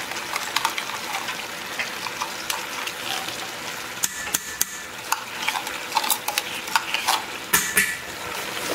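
Meat frying in a pan with a steady sizzle while a spoon stirs it, scraping and knocking against the pan many times, with a few louder knocks near the end.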